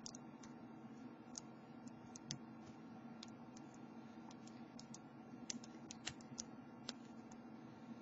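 Faint, irregular light clicks of a lock pick working the pin tumblers of a cheap steel padlock held under a tension wrench. They are the sounds of single-pin picking, feeling along for the binding pins, and they come a little thicker and louder a little past halfway.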